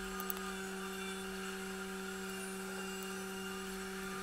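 Quiet background music of steady, held low notes, with a couple of faint clicks about a third of a second in.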